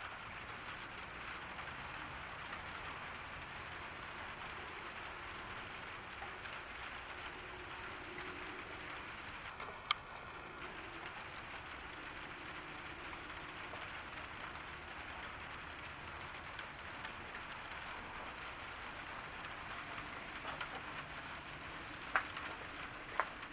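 Steady summer rain falling on a garden, an even hiss. Over it, a high, thin chirp repeats about every second and a half, typical of a small bird calling in the rain. A brief different call comes about ten seconds in, and a few sharp drip clicks come near the end.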